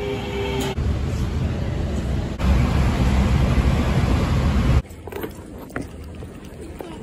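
Passenger train sounds cut together: a train running along the platform with a steady whine, then a loud steady rumble from aboard the moving train. Nearly five seconds in, the rumble cuts off suddenly into quieter platform noise with a few light knocks.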